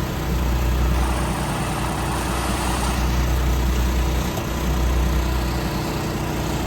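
A large farm machine's engine running steadily at idle, a constant low rumble. A brief hiss joins it from about one to three seconds in.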